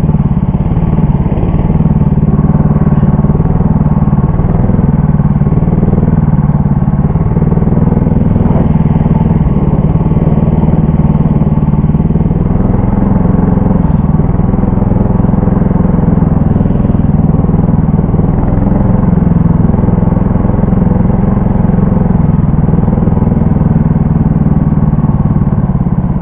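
Engine of a Lider 3 motorized snow tow running steadily while driving over the snow, its pitch wavering slightly.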